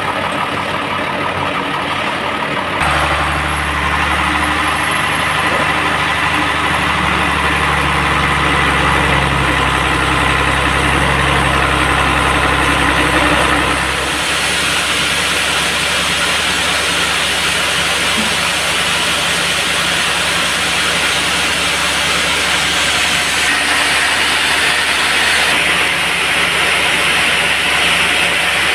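Band sawmill running steadily as it saws a log, its machine note changing about three seconds in and again about halfway through, where a brighter hissing takes over.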